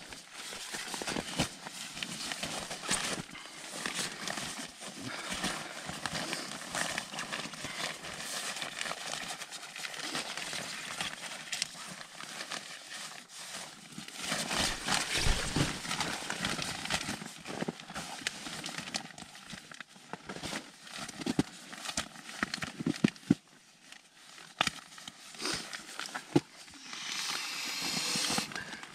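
Nylon tent fabric and an inflatable sleeping pad rustling and crinkling as they are handled, with many small clicks and knocks. Near the end comes a steady breathy hiss: the pad being blown up by mouth through its valve.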